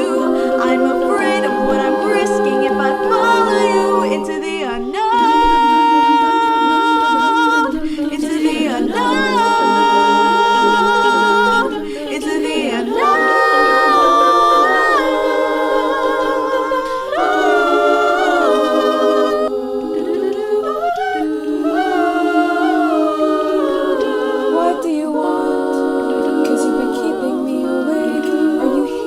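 A cappella vocal group singing in harmony: sustained lower voices hold chords while a higher line carries the melody, with long held notes and vibrato.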